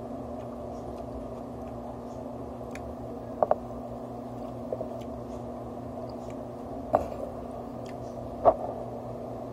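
Quiet eating at a table: a few sharp clicks of chopsticks and dishes, the loudest about eight and a half seconds in as rice is lifted to the mouth, over a steady background hum.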